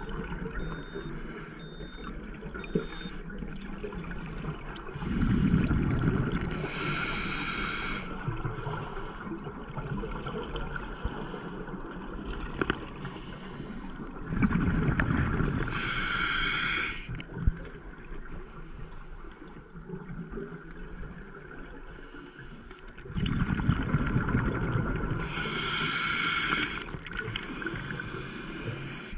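Scuba diver breathing through a regulator underwater: three breath cycles about nine seconds apart, each a low bubbling rush followed by a short hiss.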